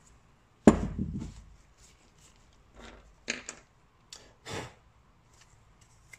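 A motorcycle brake caliper body set down on a wooden workbench with one solid knock, followed by several lighter clicks and taps as small parts are handled.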